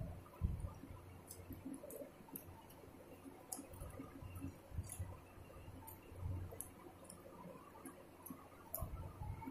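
A person eating rice and chicken curry by hand: faint chewing with many small, scattered mouth clicks and smacks.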